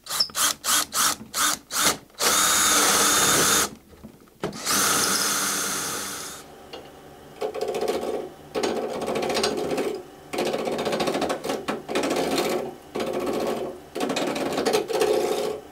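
Cordless drill boring through a banksia-pod-and-epoxy pen blank: the trigger is pulsed in about seven quick bursts, then two longer steady runs. From about seven seconds in, the blank spins on a wood lathe and a turning chisel cuts it in five short passes of a second or two each.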